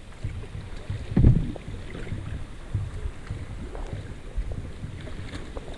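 Wind buffeting a camera microphone mounted on a kayak moving down a river, with the water rushing and lapping around it; one louder bump about a second in.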